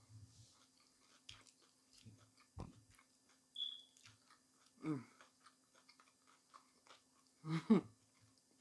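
A person chewing a mouthful of fast food with the mouth closed: soft crunches and small wet mouth clicks. There are two short hums from the throat, about five seconds in and near the end.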